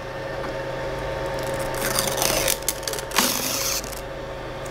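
Creality LD-001 resin 3D printer running just after power-on: its fan hums steadily, starting at the beginning. A couple of short rustling, scraping handling noises come about two and three seconds in.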